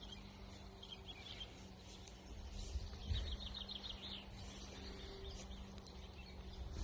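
A small bird gives a quick trill of about eight rapid high notes about three seconds in, over low wind or handling rumble and a faint steady low hum.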